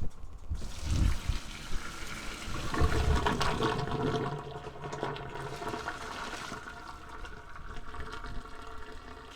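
Pasta cooking water being poured out of a pot and draining in the sink, a splashing rush that eases off about six seconds in, with a few low knocks of the pot.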